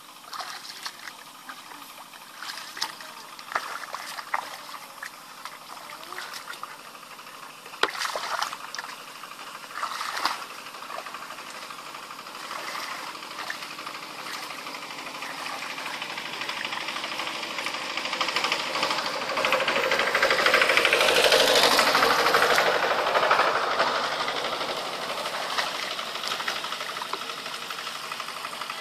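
Shallow muddy water splashing and sloshing as people wade through it and scoop with buckets. From a little past the middle, a broad rushing noise builds up, is loudest about three quarters of the way in, then eases off.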